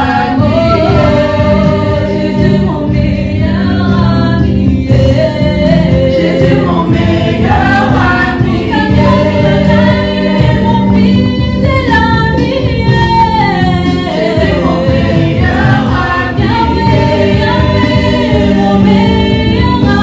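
A small worship team of men and women singing a gospel song together through microphones, the voices amplified over the church's sound system.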